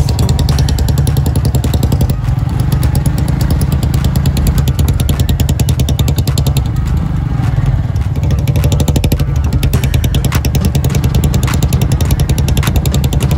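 A 110cc single-cylinder motorcycle engine running steadily as the bike is ridden off-road. A few sharp clicks or knocks come through, mostly in the second half.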